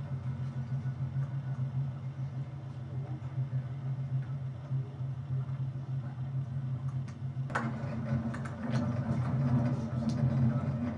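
Steady low drone of a passenger train carriage, with a sharp click about seven and a half seconds in, after which the drone is a little louder.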